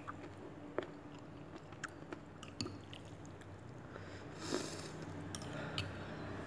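Faint chewing of a mouthful of bakso meatball, with a few light clicks of a metal fork and spoon against the bowl.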